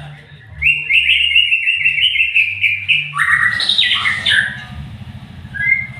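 White-rumped shama (murai batu) singing: a fast, even run of notes for about two and a half seconds, then a louder, fuller phrase of whistled notes, and a couple of short whistles near the end, over a low hum.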